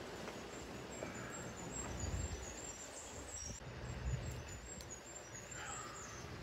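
Quiet outdoor ambience around a campfire with a frying pan of bacon and onions on the grate: a steady low hiss, a few faint knocks, and a bird calling once near the end.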